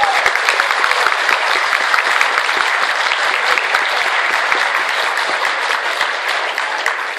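Audience applauding: a dense, steady run of many hands clapping that eases off a little near the end.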